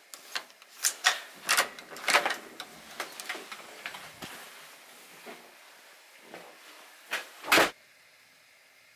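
Hotel room door with a card-slot lock being unlocked and opened: a run of sharp clicks and knocks, then fainter handling and one heavier thump a little before the end.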